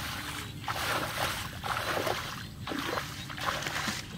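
Water splashing and sloshing in irregular surges, about one to two a second.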